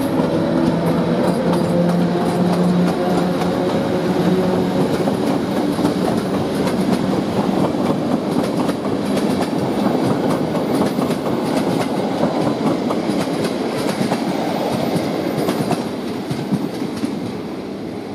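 PKP EU07 electric locomotive and its passenger coaches passing. The locomotive hums steadily for the first few seconds, then the coaches' wheels clatter rapidly over the rail joints, fading near the end as the train draws away.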